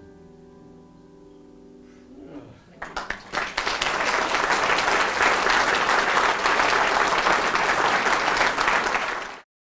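A grand piano's final chord dying away, then an audience breaking into applause about three seconds in; the clapping grows quickly, holds steady and cuts off suddenly near the end.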